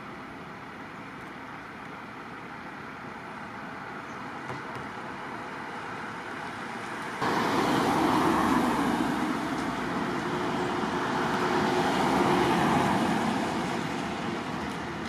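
Road traffic noise: the rumble and hiss of passing vehicles. It jumps suddenly in loudness about halfway through, then swells twice as vehicles go by.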